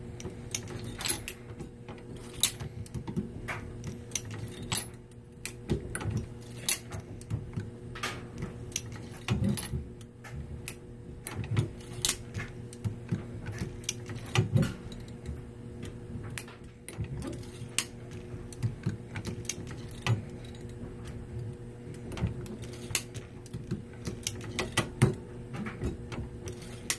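Dillon 650 progressive reloading press being cycled to expand .223 brass cases through expander dies: repeated metallic clicks and clacks of the press and brass cases clinking, stroke after stroke, over a steady low hum.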